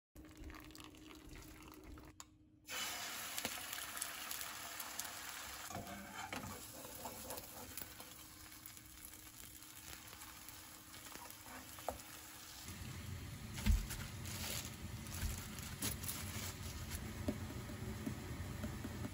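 Kitchen cooking sounds: a steady hiss of water or sizzling with scattered light clicks of utensils, and one louder knock about two-thirds through.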